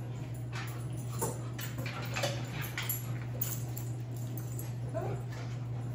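A dog whining softly in a few short whimpers, among scattered light knocks and shuffling, over a steady low hum.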